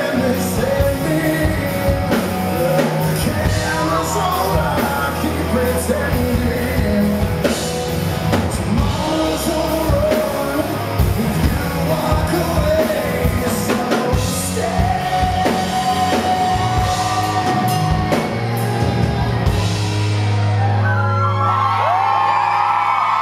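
Live rock band playing with a male lead singer belting out the vocal over electric guitars and drums. Near the end the band holds a long low chord while the audience starts to cheer.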